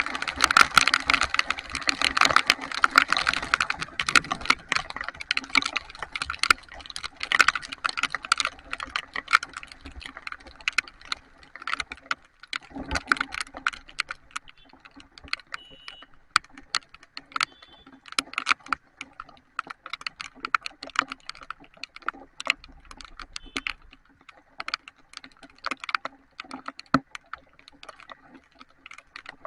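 Heavy rain, with drops striking a surface close to the microphone in a dense, irregular run of sharp taps. The taps are heaviest in the first few seconds and thin out after that.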